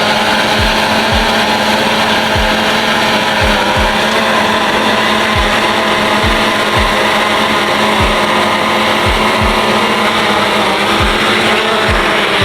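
Background hip-hop music with a dense, steady mix and deep bass hits sliding down in pitch, about one and a half a second.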